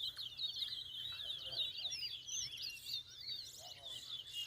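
Twa-twa (chestnut-bellied seed finch) singing: a fast, continuous run of high chirping, warbling notes.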